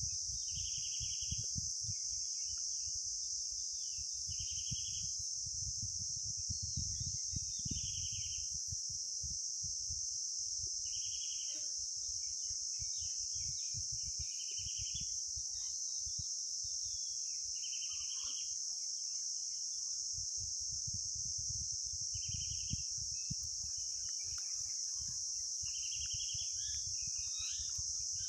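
Steady high-pitched chirring of insects, with a short pulsed trill repeating about every three to four seconds, over a low rumble.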